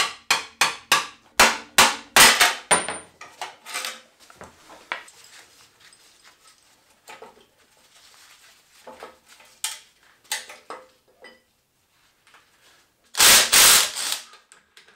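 Hammer tapping repeatedly on a metal part of a 1.9 diesel engine to knock it loose, about three sharp taps a second for the first three seconds, then scattered small metal clicks. Shortly before the end, a loud rattling burst lasting about a second.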